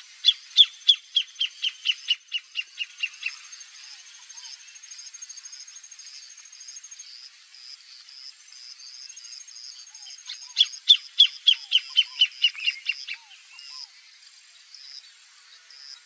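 Greater thornbird singing: two songs, each a rapid series of loud, evenly spaced notes lasting about three seconds and falling gently in pitch, the second starting about ten seconds in. A thin, steady insect trill runs high behind them.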